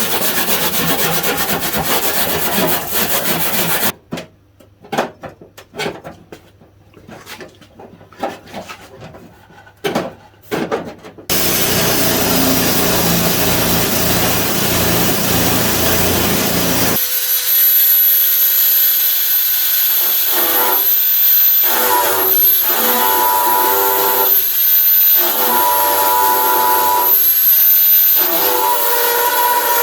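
Power tools grinding and scraping the rusted steel at the bottom of a car door, in several abrupt stretches: a steady hiss, then short scraping bursts, then denser grinding, and for the last half a high motor whine whose tones drop in and out as the tool is pressed on and eased off.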